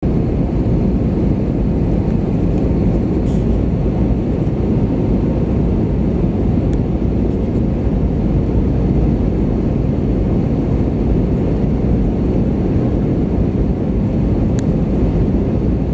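Cabin noise inside an Airbus A320-200 descending on final approach: a steady, low rush of airflow and jet engines, with a faint steady whine above it.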